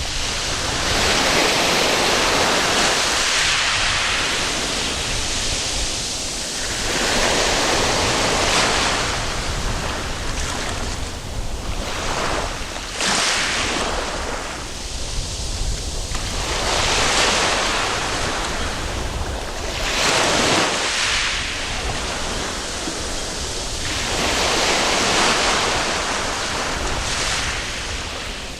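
Waves breaking and washing up a sandy beach, the surf swelling and falling back every few seconds.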